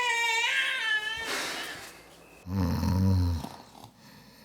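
A person snoring: a breathy noise, then a low snore lasting about a second starting about two and a half seconds in. A short, high, wavering vocal sound comes just before it at the start.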